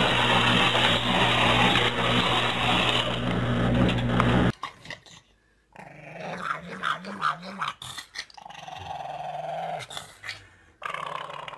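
A dog growling and whining in wavering, pitched sounds. Before them, a loud steady noise with a low hum breaks off suddenly about four and a half seconds in.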